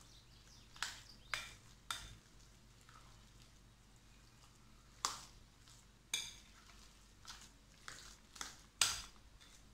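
Hands mixing mashed boiled potato with egg in a glass bowl: a handful of short, sharp clicks and scrapes against the glass, spread out over a quiet background.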